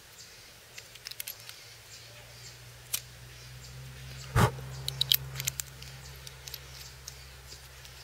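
Small metal clicks and scrapes as a peanut-style capsule lighter is opened and struck alight, with one louder thump about four and a half seconds in and a few more quick clicks just after.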